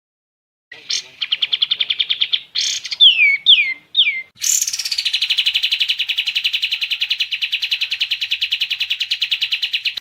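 A kapas tembak bird singing: a fast rattling trill starting just under a second in, then three or four quick falling whistled notes, then a long, even, rapid trill from about halfway.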